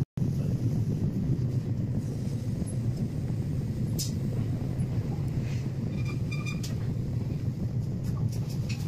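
Potter's wheel running with a steady low hum as wet clay is thrown into a tall vase, with a few faint clicks in the second half.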